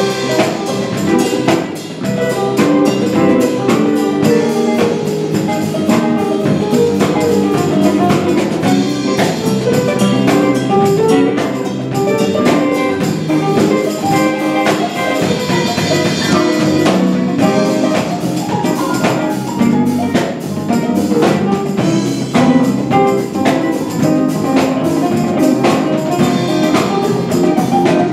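Live band playing an instrumental jazz-style jam: electric bass, drum kit, keyboard and electric guitar, with drum hits throughout.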